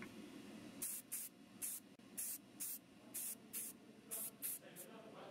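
Spray paint hissing in short bursts onto plastic model-kit parts, about two bursts a second and often in pairs.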